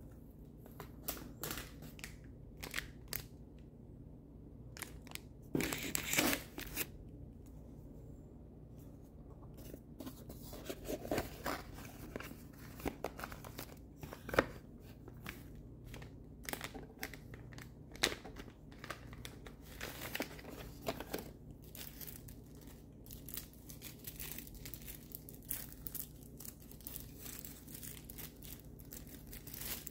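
Amazon shipping box and its packing being opened: tape and cardboard tearing and packing material crinkling in irregular rustles and snaps, loudest in a burst about six seconds in, over a faint steady low hum.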